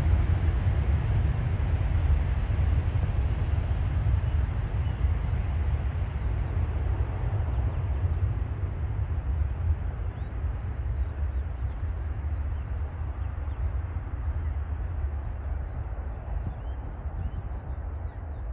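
Jet airliner's twin engines at takeoff power during the takeoff roll: a deep, steady noise that slowly grows fainter and duller as the aircraft accelerates away.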